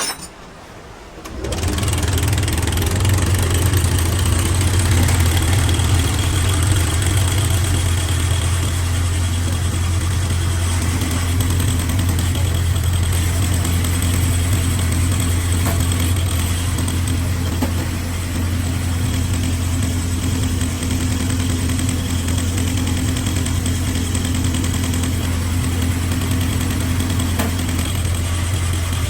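Old Bedford truck's diesel engine starting about a second in, after a short click, then idling steadily.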